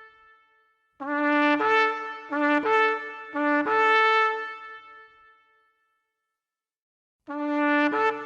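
Ram's-horn shofar blown in three blasts, each starting on a low note and jumping up to a higher one, the third held longest and fading away. After a pause of about two seconds, another blast begins near the end.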